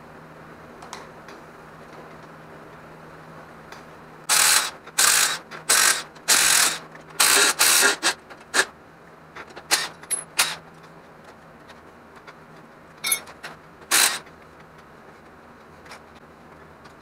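Handheld cordless power tool with a socket, run in short loud bursts to loosen and spin out bolts on the top of an LS 5.3 cylinder head: about six half-second bursts starting about four seconds in, then a few shorter blips.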